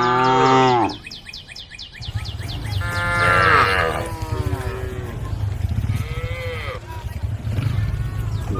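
Cows mooing: several drawn-out calls, one ending about a second in, a louder, longer one around the middle and a fainter one near the end. A steady low hum runs underneath from about two seconds in.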